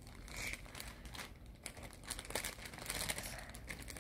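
Clear plastic bag crinkling as hands open it and reach in for a sneaker, an irregular crackle that gets busier in the second half.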